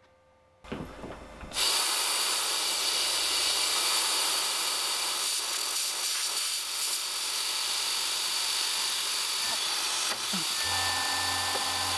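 Steady hiss of compressed air from the mist-coolant nozzle at the milling machine's gear cutter, starting about a second and a half in. Near the end a low hum with a steady whine joins it as the mill's motor starts.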